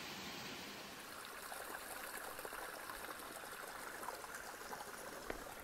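Small stream of water trickling and running over rocks: a steady, even splashing hiss.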